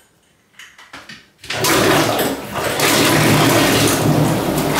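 A few small clicks, then about a second and a half in an electric outboard motor starts. It spins a 3D-printed propeller submerged in a box of water, giving loud, steady churning and splashing water over a low motor hum.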